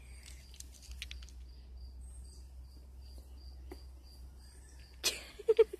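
Insect chirping in an even series of short high chirps, about three a second, over a low steady rumble. A burst of louder clatter comes near the end.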